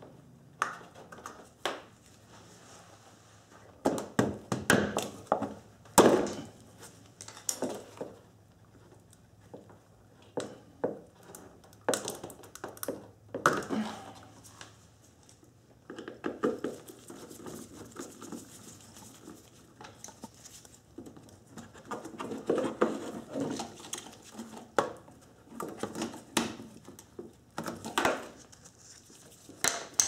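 Hand work on a car's front lamps: a screwdriver and the plastic lamp housings and trim being handled, unscrewed and pried out. It comes as irregular clusters of clicks, scrapes and knocks with short pauses between.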